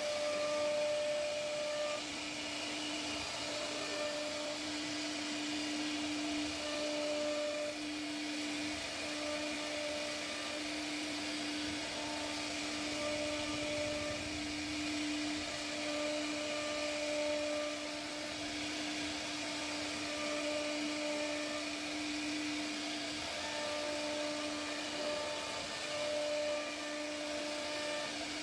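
CNC router spindle running with a steady whine while its bit carves curved grooves into a wooden door panel, over an even noise of cutting. A higher overtone fades in and out as the cut goes on.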